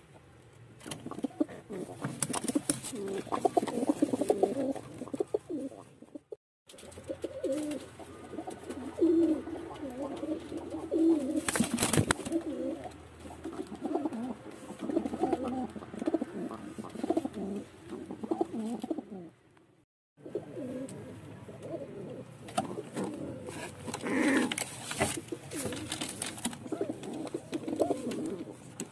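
Domestic pigeons cooing: low, rolling coos repeating over and over, with a sharp click about twelve seconds in. The sound drops out briefly twice.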